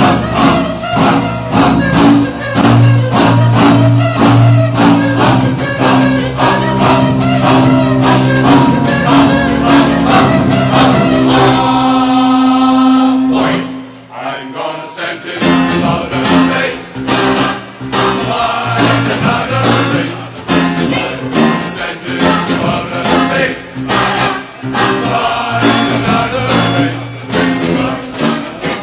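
A large choir singing with a percussion band drumming along. About twelve seconds in, the drums drop out under a held chord. After a short dip, singing and drumming start up again.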